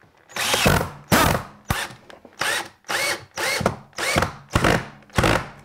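Cordless drill run in short trigger bursts, about nine of them at roughly two a second, into a loveseat's wooden frame. The motor speeds up and winds down with each squeeze.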